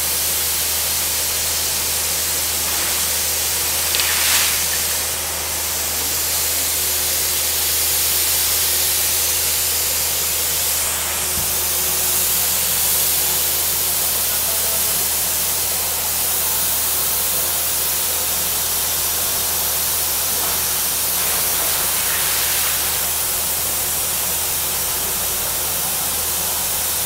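Compressed air from a high-power air compressor blasting down a borewell in air-lift cleaning, forcing water and mud up out of the casing: a steady hiss and gush with a low steady hum underneath. A brief louder surge comes about four seconds in.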